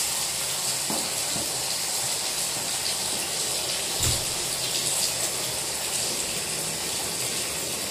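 Bath tap running into a filling bathtub: a steady rush of water, with one brief soft thump about four seconds in.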